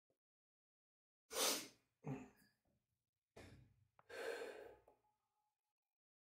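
A man breathing out heavily, four loud exhales and sighs in the space of about four seconds, the first the loudest, as he catches his breath between workout sets.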